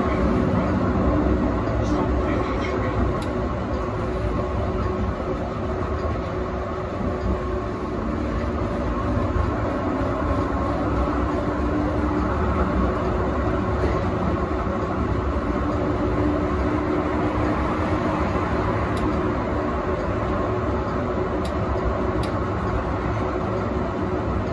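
Yarra Trams A2-class tram running along street track, heard from inside its front end: a steady rumble of wheels on rail with a low motor whine that rises slightly in pitch about eight seconds in, and a few faint clicks later on.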